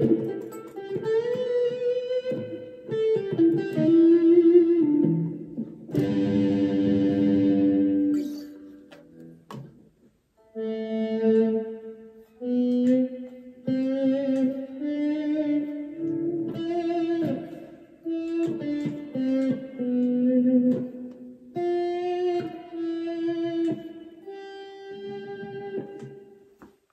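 Electric guitar played through a Donner Vowel volume/wah pedal and a small Roland Micro Cube amp. It plays melodic single-note lines, with a strummed chord ringing for about two seconds near the quarter mark.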